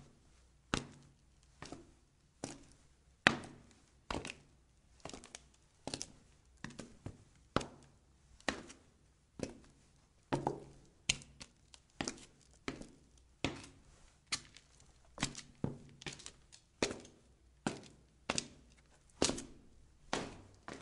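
Footsteps on a hard, solid floor at an even walking pace of about one step a second, many steps landing as a quick heel-then-toe double knock.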